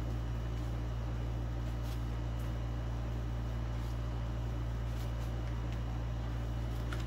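Steady low hum with a faint hiss over it, unchanging throughout, and a few faint soft ticks.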